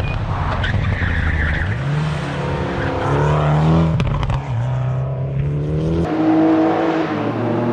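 Mitsubishi Lancer Evolution X's turbocharged 2.0-litre four-cylinder racing on track, its pitch rising as it revs and dropping back at lifts or gear changes, several times over. A sharp crack comes about four seconds in as the revs fall, from a car fitted with an anti-lag system.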